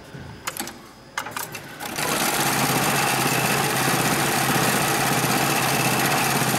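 HighTex 72600PLK2S heavy-duty cylinder-bed pattern sewing machine stitching a pattern through thick webbing for a big bag handle loop, starting about two seconds in and then running at an even, steady speed. Before it starts, a few sharp clicks as the webbing is set in the work clamp.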